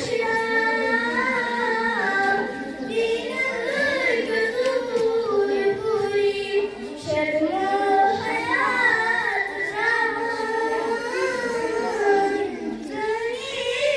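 A young girl singing solo, holding long notes that waver and bend, with short breaths between phrases.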